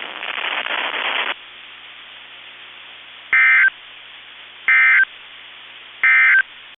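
Weather radio hiss, loud for about the first second and then faint, followed by three short bursts of EAS/SAME digital data tones about a second and a half apart. This is the end-of-message code that signals the alert broadcast is over.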